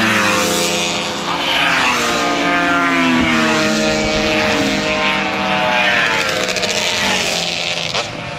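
Racing motorcycles passing at speed one after another, each engine's pitch falling as it goes by.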